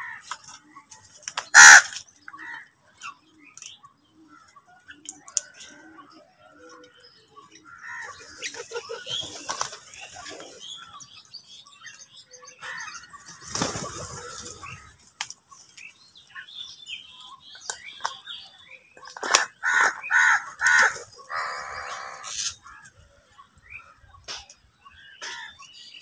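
House crows cawing while they feed together: a loud harsh caw near the start, scattered softer calls, and a quick run of about four loud caws a little past two-thirds of the way through, mixed with the flapping of wings as crows land and take off.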